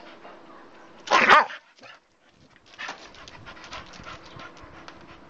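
Dog panting, with one loud bark about a second in.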